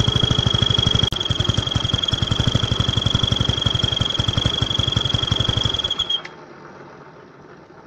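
Motor scooter engine idling, with a steady high horn-like tone from a toy trumpet fitted to the cam-chain breather hose, pulsing with each firing stroke. The engine is switched off about six seconds in, and the tone stops with it.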